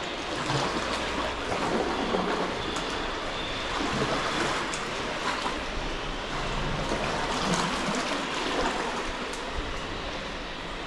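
Sea water splashing and lapping around a paddled sea kayak, surging every second or two, over a steady low rumble.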